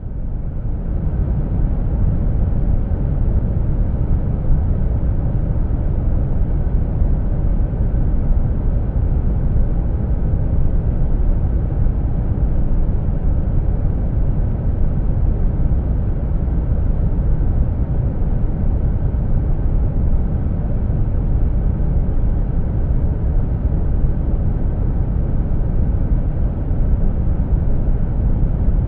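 Steady, deep rumbling hum of a car's air conditioning blended with brown noise, with no variation. It swells in over the first couple of seconds.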